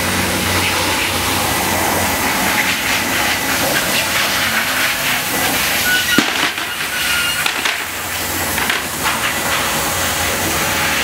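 Steady hiss throughout, with a single sharp bang about six seconds in that fits the agility teeter-totter's board dropping onto the ground as the dog crosses it.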